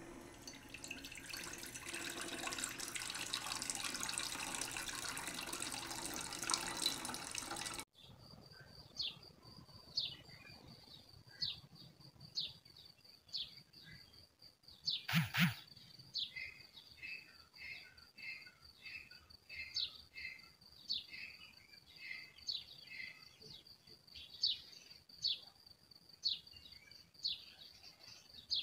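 Tap water running onto a skinned goat carcass in a plastic basin for about eight seconds, then cutting off abruptly. After that, birds chirping about once a second over a steady high tone, with one louder call near the middle.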